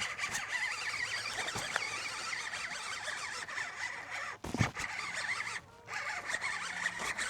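Fishing reel being cranked to bring in a hooked bass, a steady zipper-like whir. There is a single knock about four and a half seconds in, and a brief pause near the end.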